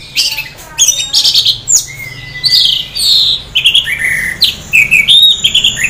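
Caged orange-headed thrush (anis merah) singing a loud, continuous song: a rapid string of varied phrases, some sliding whistles, with only brief gaps. The bird is singing in semi-breeding condition.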